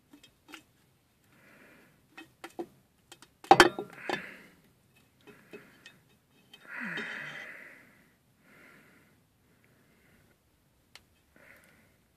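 Metal parts and tools being handled: scattered clicks and one loud metallic clank with brief ringing about three and a half seconds in. Several short breathy hisses come between them, the longest lasting about a second near the middle.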